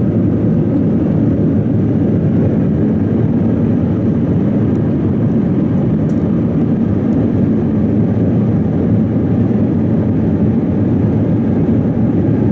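Steady cabin noise inside an Airbus A319 climbing out after takeoff: an even, low rush of jet engine and airflow noise with no change in level.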